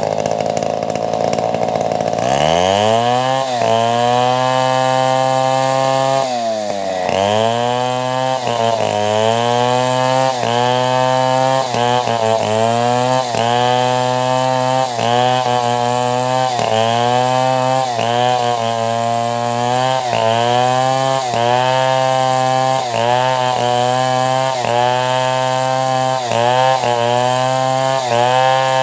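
Chainsaw engine that runs at a lower speed, revs up sharply about two seconds in, then holds high revs with its pitch dipping briefly about once a second as the chain bites into the timber, ripping a log into boards.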